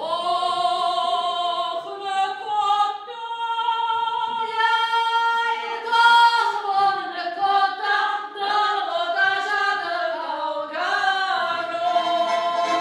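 Several women singing together on stage in long held notes.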